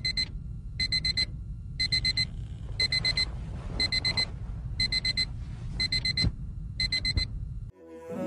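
Electronic wake-up alarm beeping: quick groups of high-pitched beeps repeating about once a second, over a low rumble, until it is switched off suddenly near the end.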